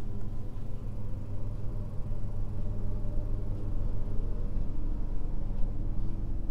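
A steady low hum, like a motor or appliance running, holding an even pitch throughout.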